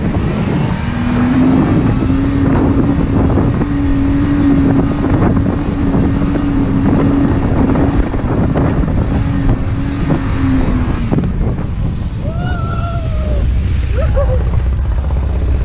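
Chevy mud truck's engine running hard at a steady high pitch as it climbs a loose sand hill, over a dense rumble and clatter. About eleven seconds in the engine note eases off as the truck nears the top, and a brief wavering high whine follows.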